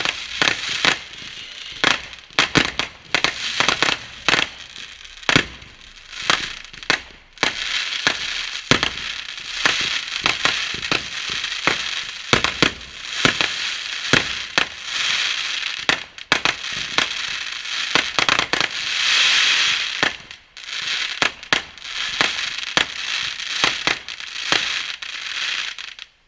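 Fireworks going off. The first several seconds are separate sharp bangs; from about a third of the way in comes a steady high crackling, with bangs scattered through it. The crackling is loudest a little past the middle and cuts off right at the end.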